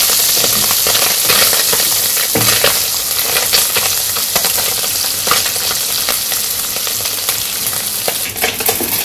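Small mola fish sizzling steadily in hot oil in a kadai, nearly fried through, with a wooden spatula scraping the pan and turning them every so often.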